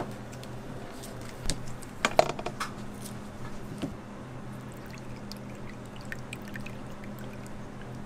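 Butter and its paper wrapper being handled, with a few sharp knocks about two seconds in. Then milk is poured in a thin stream into a glass measuring cup over blocks of butter, a faint liquid pour over a steady low hum.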